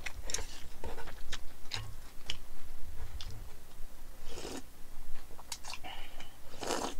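Eating mul-naengmyeon: scattered soft mouth clicks, then two short slurps of cold noodles and broth, about four and a half seconds in and again just before the end.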